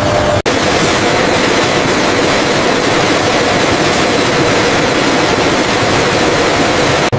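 Steady, dense factory machinery noise with a faint steady hum under it. It cuts out for an instant just under half a second in.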